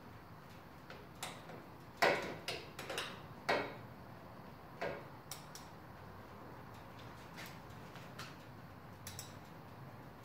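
Light, irregular metallic clicks and taps of a socket wrench working on a motorcycle: a quick cluster about two to four seconds in, then scattered single clicks.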